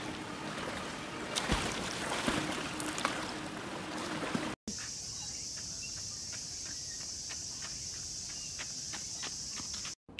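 Water splashing and sloshing in a pool as a heavy costume thrashes in it, then an abrupt cut to a steady high-pitched insect drone, typical of cicadas in summer trees, with a row of light taps that quicken toward the end.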